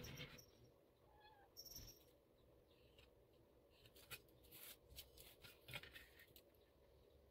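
Faint handling sounds: a steel ruler laid down and shifted on foam board, with a pen scratching lines along it, as scattered light clicks and short scrapes. A brief faint squeak comes about a second in.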